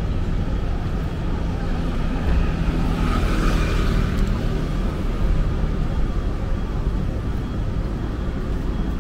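City street ambience: steady traffic noise, with a vehicle passing close by about three seconds in.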